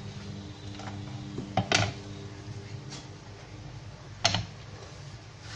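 Wooden trivet and ceramic plate knocking against a gas hob's pan support, a few separate clatters, the loudest a quick double knock a little under two seconds in and another past the four-second mark. A low steady hum sits underneath in the first half.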